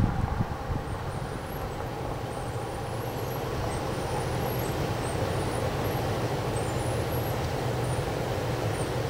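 Strong wind blowing steadily at night: a constant rushing noise with a low rumble that slowly grows a little louder.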